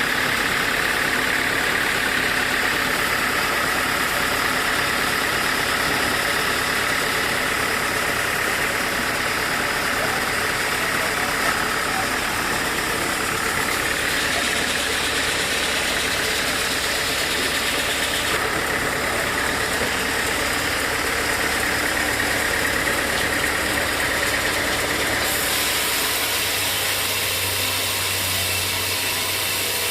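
Sawmill machinery running steadily, an engine-like hum with a noisy hiss over it. The sound changes character abruptly a few times.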